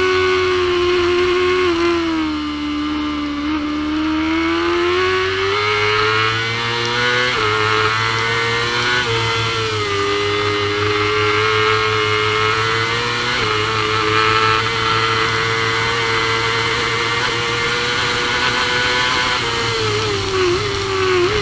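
Supersport racing motorcycle engine at high revs, heard from onboard, accelerating hard through the gears. Its note climbs and drops sharply at each of several upshifts.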